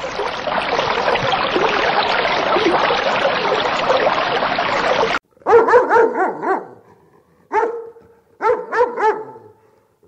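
A steady, dense wash of noise for about five seconds that cuts off abruptly, then a dog barking in short runs of quick barks: a quick burst of about five, a single bark, then another burst of about four.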